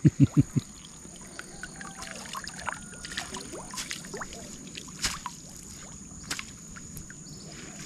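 Quiet water splashing and trickling with scattered small knocks and clicks, over a faint steady high-pitched tone.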